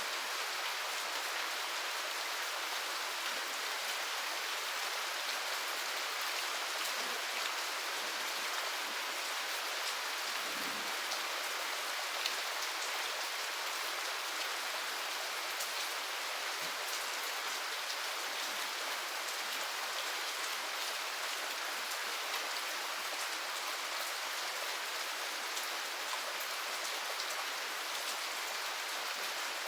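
Steady rain, an even hiss with scattered drop ticks and no thunder.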